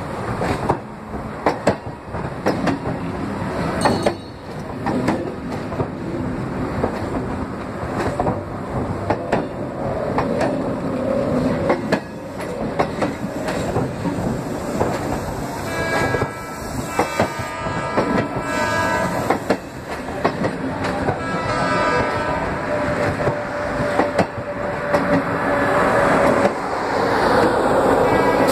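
BHEL-built EMU suburban train running past at close range, its wheels clattering over the rail joints in a stream of sharp clicks. A pitched whine of several notes sounds for several seconds past the middle.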